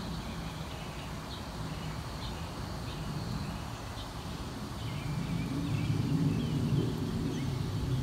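Small songbirds chirping in short, quick notes over a steady low rumble that grows louder about five seconds in.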